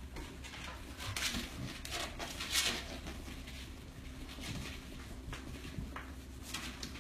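A few soft scuffs and rustles as a dog shifts and lies down on a tile floor.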